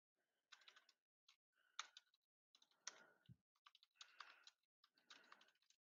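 Faint typing on a computer keyboard, keystrokes coming in short clusters about once a second.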